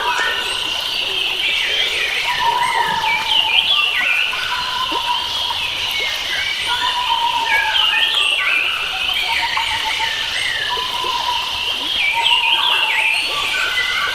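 A chorus of wild forest birds chirping and trilling, with one bird repeating a short lower whistled phrase every two to three seconds, over a steady high background hiss.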